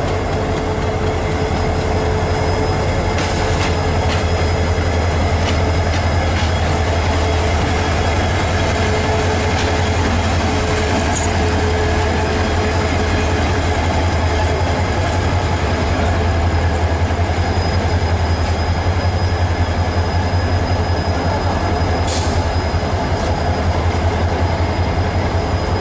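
Diesel-electric locomotive's engine running with a steady low drone as it rolls slowly past on the rails, with a thin high wheel squeal at times.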